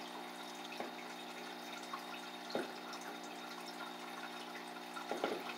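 Water sounds at a small fish tub: a steady hum with a faint trickle of water, and three small splashes at the surface, about a second in, midway and near the end.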